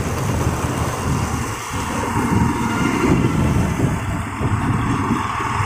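Steady engine and road noise from a vehicle driving along a road.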